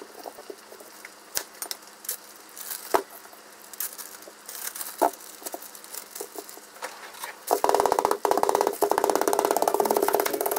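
Soft scattered scraping and clicks of a vegetable peeler on a nagaimo (Chinese yam) and of a plastic zip-top bag being handled. About seven and a half seconds in, a wooden rolling pin starts pounding the yam inside the zip bag: a loud, rapid run of knocks.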